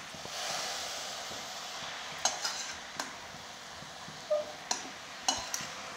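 Green chickpea leaves frying with a steady sizzle in a kadhai while being stirred. A metal spatula scrapes and clinks against the pan several times in the second half.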